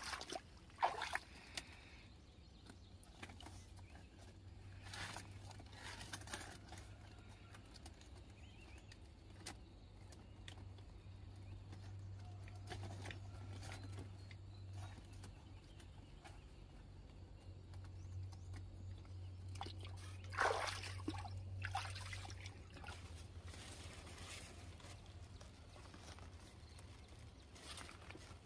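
Quiet sounds of hand-harvesting cucumbers: vine leaves rustling and cucumbers knocking softly into a woven bamboo basket, a few scattered times, the loudest about two-thirds of the way in, over a faint low hum.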